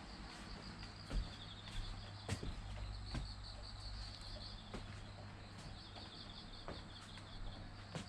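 Insects trilling steadily over a low hum, with a few sharp knocks scattered through.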